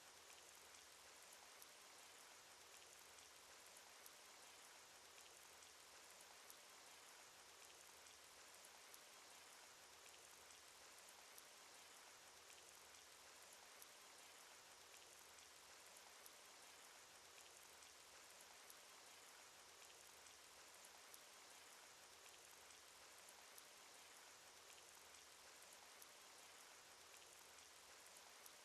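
Cartoon rain sound effect: a faint, steady hiss of falling rain, with a single drop ticking a little louder every couple of seconds.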